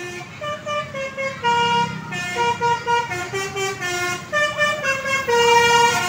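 Bus basuri (musical air horn) playing a tune: a melody of horn notes stepping up and down, a few notes a second, over the rumble of road traffic.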